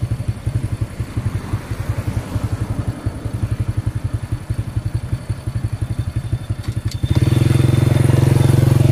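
Small step-through motorcycle engine idling with an even pulsing beat, then running louder and steadier from about seven seconds in as the bike is revved and pulls away.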